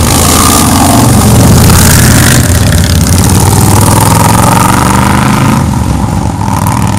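Motorcycles passing close by on the road, engines revving loudly with their pitch rising and falling.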